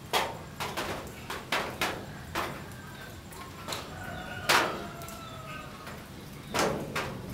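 Irregular knocks and clicks, about a dozen, the loudest about four and a half seconds in, with faint thin chirps between them.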